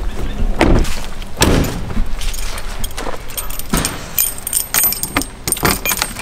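Two dull thuds in the first couple of seconds, then a bunch of keys jangling and clicking as a key is worked in the door lock of an Airstream travel trailer.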